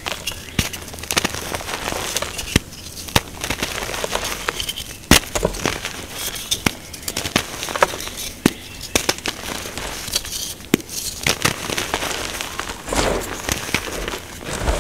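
Fingers pressing and crumbling a dyed, reformed gym chalk block into loose chalk powder: a dense run of sharp crackling snaps, one of them loud about five seconds in, with softer gritty crumbling between them.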